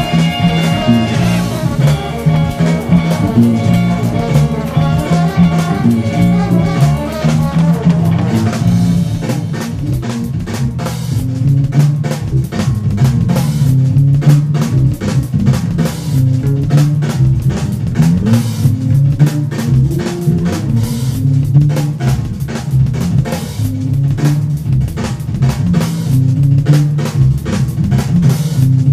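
Funk music: an electric bass plays a syncopated line over a drum kit. Held horn-like notes sound in the first several seconds and fade out about eight seconds in, leaving bass and drums.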